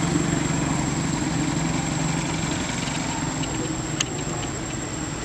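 A small engine running steadily, its hum easing slightly, with a single sharp click about four seconds in.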